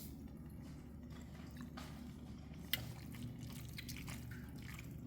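Faint chewing as a person tastes a mouthful of pasta, over a low steady hum, with one small sharp click partway through.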